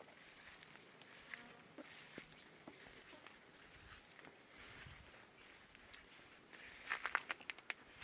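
Footsteps brushing through low leafy undergrowth, with a cluster of louder rustling and crackling near the end. Under it, a faint high insect chirp repeats about three times a second.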